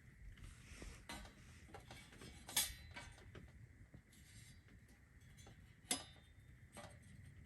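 Scattered faint clicks and ticks over a low hush, with two sharper clicks about two and a half and six seconds in.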